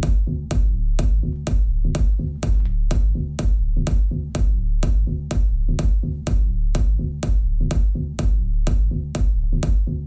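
Electronic dance music played through Polk Audio Reserve R700 hi-fi loudspeakers and subwoofers and recorded in the room: a steady drum-machine beat at about two hits a second over heavy bass.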